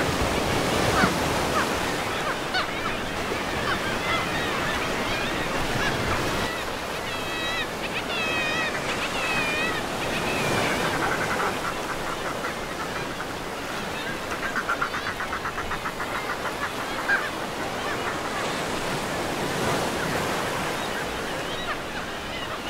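Sea surf breaking and washing steadily onto a beach. Gulls call over it several times, with a fast pulsing call a little past the middle.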